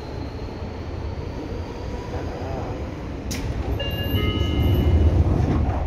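Seibu 6000 series electric train running, heard from inside the car above its Hitachi GTO inverter equipment: a steady wheel-and-rail rumble with a faint high whine that rises slowly over the first couple of seconds. A sharp click comes about three seconds in. A few short steady high tones follow, and the rumble grows louder toward the end.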